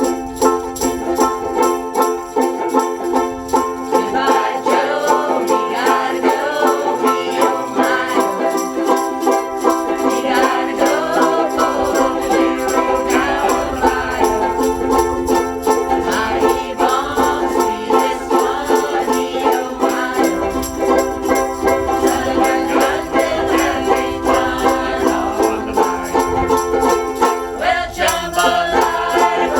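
A group of ukuleles strummed together in a steady rhythm, playing a song.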